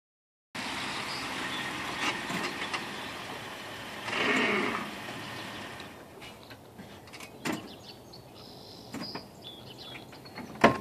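A steady noise for the first few seconds fades out about six seconds in, followed by scattered small clicks and knocks. Near the end comes one sharp, loud click as the Jeep Wrangler's door is unlatched and opened.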